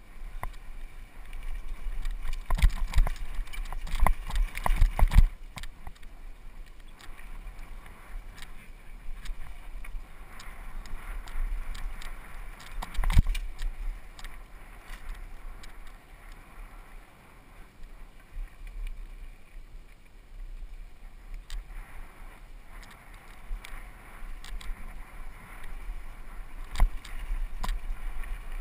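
Mountain bike rolling fast down a dry dirt trail: tyres on loose dirt and the bike rattling, with a cluster of sharp knocks over bumps between about two and five seconds in and single hard knocks around thirteen and twenty-seven seconds. A steady low rumble of wind on the microphone runs underneath.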